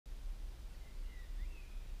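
Faint birdsong, a few short chirps and whistles, over a low steady outdoor rumble.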